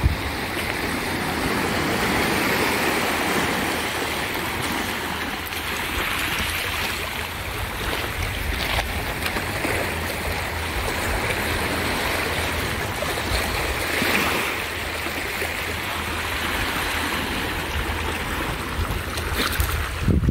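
Shallow sea water washing and lapping over rocks and pebbles at the shoreline, a steady rush of water, with low wind rumble on the microphone.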